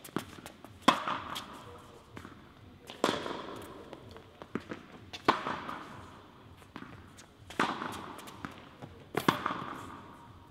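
Tennis rally on an indoor court: five sharp racket-on-ball hits about two seconds apart, each ringing on in the hall's echo, with softer ball bounces between them.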